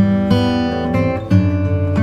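Background music: a guitar strumming chords that change every second or so.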